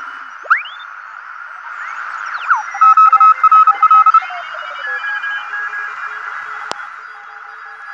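Homebuilt Polyakov-design direct-conversion receiver tuned across the 40-metre amateur band: band hiss with beat whistles that sweep in pitch as the dial turns, then Morse code signals keyed on and off at several different pitches, the loudest a rapidly keyed tone in the middle. A single sharp click near the end.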